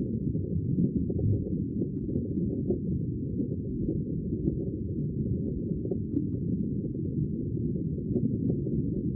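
Sea water making a steady, deep and muffled rumble, with no separate breaking waves.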